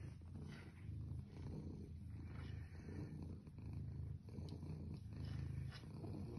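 Domestic tabby cat purring, a low steady rumble that swells and eases with its breaths.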